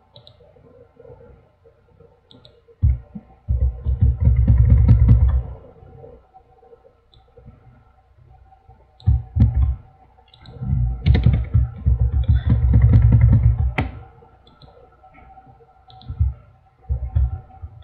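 Computer keyboard typing and mouse clicking in three bursts of rapid clicks, several seconds each, with short quieter gaps between them.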